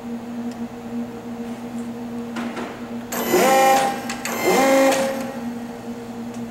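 REXA electraulic linear actuator's servo motor and pump running twice, each run rising quickly in pitch and then holding for under a second, as the actuator strokes away from and back onto the dial indicator. A steady low hum runs underneath.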